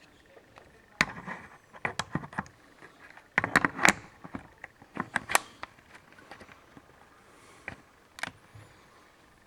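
PC case parts being handled: a scattered run of sharp clicks, clatters and rattles of hard pieces knocking together, in bunches about a second in, two seconds in, the loudest around three and a half to four seconds in, again around five seconds in, and two single clicks near the end.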